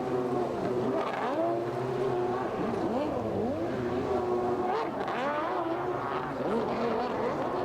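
Racing jet ski engine revving up and down over and over, its pitch rising and falling about once a second as the rider works the throttle through tight slalom turns.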